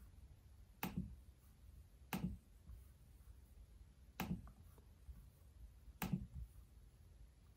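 Dell Precision 5540 laptop touchpad pressed down and clicked four times, one to two seconds apart, each a sharp click with a soft low thud.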